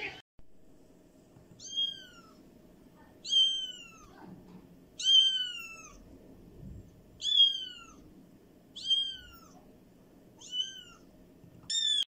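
A young tabby kitten meowing: seven short, high-pitched meows about every one and a half to two seconds, each falling in pitch.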